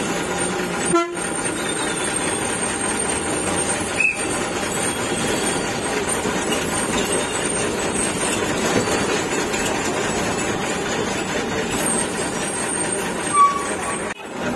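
Bus engine and road noise heard from the driver's cab while driving through traffic, with three brief horn toots: about a second in, about four seconds in, and near the end.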